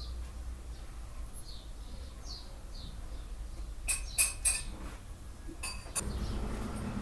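A few sharp metallic clinks, a cluster about four seconds in and another just before six seconds, over small bird chirps repeating faintly and a low hum.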